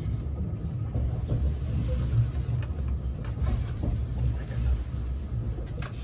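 Cabin noise of a JR West 683 series electric train running: a steady low rumble from wheels and running gear, with a couple of faint clicks.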